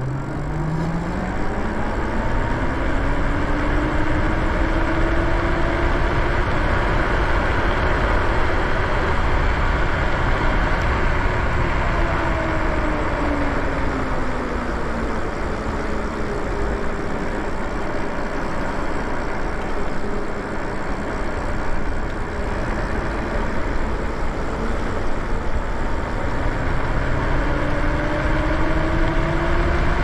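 Electric bike riding at speed, its motor whining in a pitch that climbs as it accelerates, drops in the middle as it slows, and climbs again near the end. Steady wind and tyre noise run under the whine.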